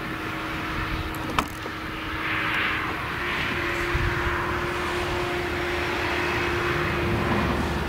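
Claas Jaguar 970 forage harvester's MAN V8 engine working under load while it chops maize and blows it into a tractor-drawn trailer, a steady drone with a steady hum and a rushing hiss that rises and falls over it, the tractor's engine running alongside. A single sharp click about a second and a half in.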